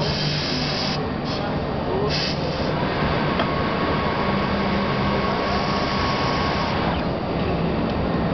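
Corghi Artiglio 50 tyre changer in operation: short bursts of air hiss at the start and again about two seconds in as its pneumatic tool arms are positioned, over a steady machine hum and the chatter of voices around it.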